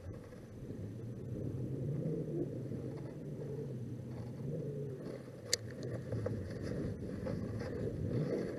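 Wind rumbling on the microphone, with small waves lapping at a kayak's hull. One sharp click sounds a little past halfway.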